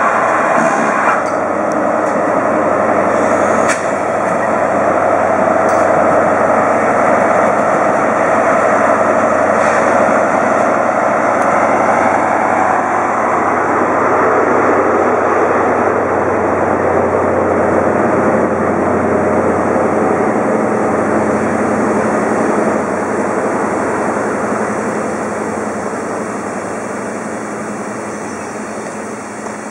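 Steam roaring from the safety valves of a GWR 4200-class 2-8-0 heavy freight tank engine standing in steam: a loud, steady rush that eases off over the last several seconds.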